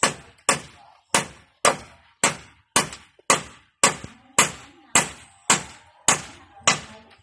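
Steady hammering on a wooden roof frame, about two sharp blows a second: a hammer driving nails into the rafters.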